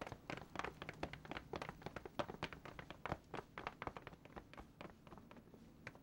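Footsteps of several people walking down stone stairs, a quick, uneven run of sharp steps that thins out to fewer steps after about four seconds.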